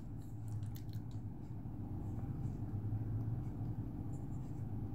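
Faint clicks and taps of a plastic microphone shock mount being handled, over a steady low hum.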